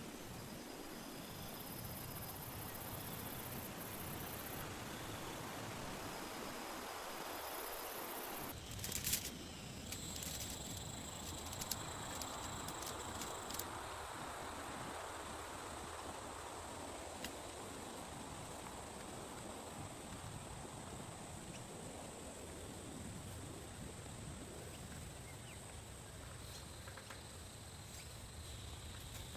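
Steady rain falling, an even hiss, with a brief cluster of sharp clicks and knocks about nine seconds in and a few single ticks after it.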